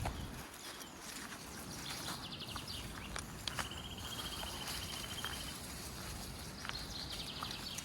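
Footsteps on a wet, muddy trail, heard as scattered soft clicks over an outdoor background. A high, even trill starts about halfway through and lasts under two seconds, with shorter buzzy calls before it and near the end.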